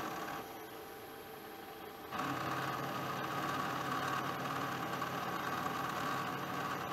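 Milling machine running with a freshly sharpened end mill cutting a metal block. The cut comes in about two seconds in as a louder, steady cutting sound over the spindle motor's hum, and it stops abruptly near the end. The cutter is sharp and cutting cleanly, throwing chips.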